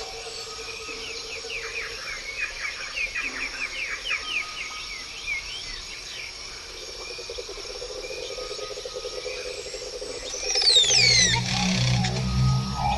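Sound-designed alien forest ambience: a bed of insect and frog-like trilling with a flurry of quick chirping bird calls in the first few seconds. About eleven seconds in, a loud high whistle falls in pitch and a low droning tone sets in and stays to the end.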